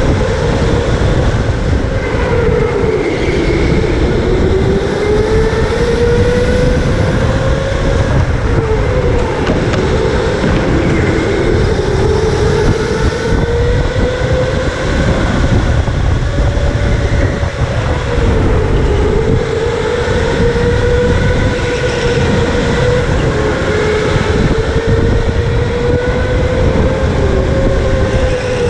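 Electric go-kart motor whining, its pitch dipping and climbing again every few seconds as the kart slows for corners and speeds back up. The whine sits over a steady rumble of tyres, chassis and wind on a helmet-mounted camera.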